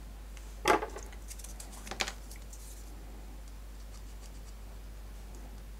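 Ballpoint pen being uncapped and put to a plastic SIM card: a sharp click a little under a second in, then a few light scratchy clicks around two seconds, over a faint steady low hum.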